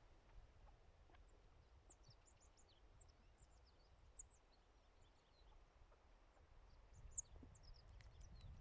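Birds chirping faintly outdoors: many short, high, thin notes scattered through, with a louder one about four seconds in and another about seven seconds in, over a low rumble.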